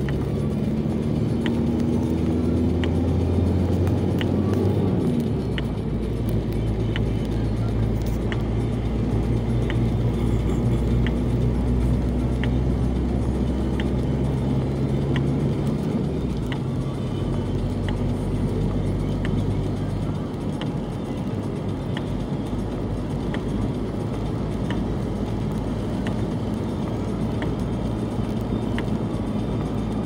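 Engine and tyre noise heard from inside a moving vehicle on wet asphalt. The engine's pitch rises about four to five seconds in, and a faint tick repeats about every second and a half.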